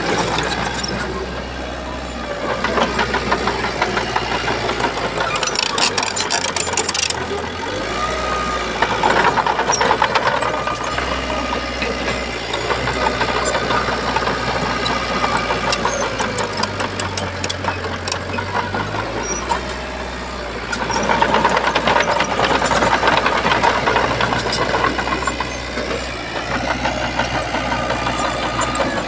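Shantui crawler bulldozer's diesel engine running under work, swelling louder several times, with clicking and knocking throughout.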